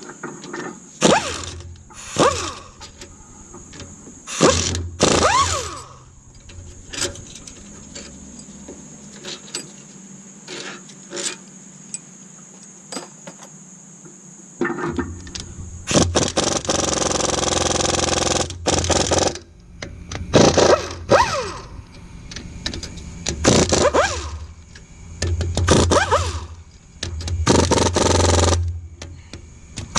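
Hand tools working on a V6 engine's cylinder head bolts: a socket wrench and sockets clanking and scraping against metal in a series of short bursts, with a longer, steady rasping stretch about halfway through.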